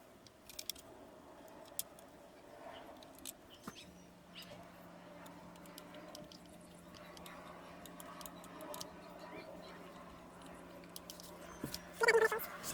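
Small scattered clicks and taps of a car power-window master switch's plastic parts and its screws being handled and fitted during reassembly. A faint steady hum comes in about four seconds in, and a short louder sound comes near the end.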